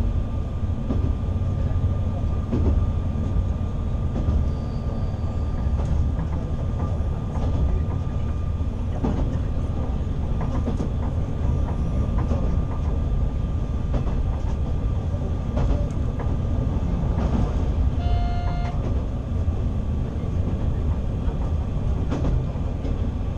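Diesel railcar running along the track, heard from inside the cab as a steady low rumble of engine and wheels, with occasional knocks from the rail joints. About three-quarters of the way through, a short pitched tone sounds for under a second.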